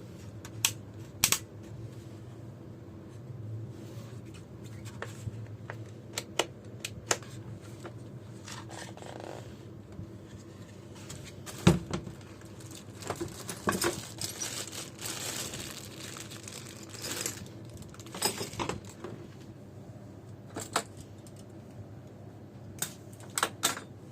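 Scattered sharp clicks and light knocks with stretches of rustling, as a newly unboxed power planer and its packaging are handled; the sharpest knock comes a little before halfway.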